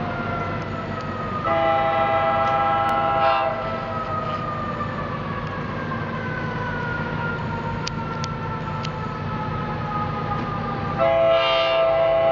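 Approaching passenger train locomotive sounding two long horn blasts for a grade crossing, one about a second and a half in and another near the end, each about two seconds long. Beneath them is a steady rumble and a fainter tone that slowly drops in pitch.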